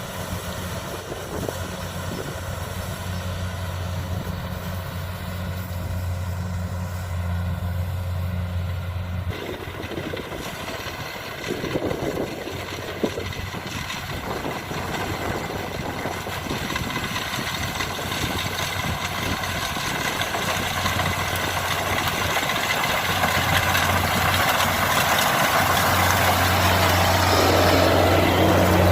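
Kubota DC70 combine harvester's diesel engine running steadily with a low hum. About nine seconds in, a wider rattling noise from the working machinery joins it, and the whole sound grows louder toward the end.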